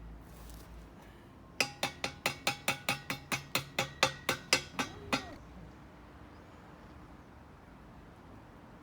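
Ball peen hammer striking the mangled steel end of an exhaust Y-pipe to reshape it for its donut seal. About seventeen quick ringing metal blows, roughly five a second, that stop about five seconds in.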